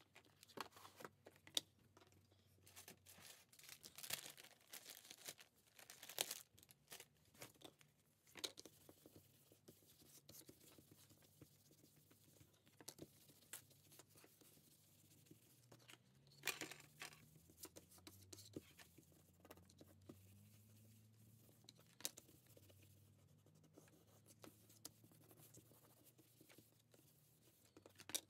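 Faint handling of thick cardboard flash cards: scattered sharp clicks and taps as the cards are picked up and set down on a wooden desk, with the rustle of a crumpled paper tissue rubbed over a card's surface.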